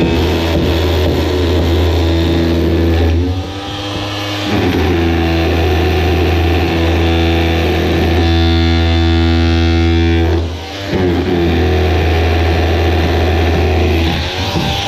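Electric chisel hammer running steadily as it breaks out concrete block and mortar, with two brief pauses, about three and a half and about ten and a half seconds in.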